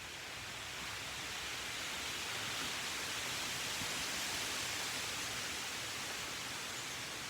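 A rushing hiss of noise with no distinct tones or clicks, swelling over the first few seconds and easing off toward the end.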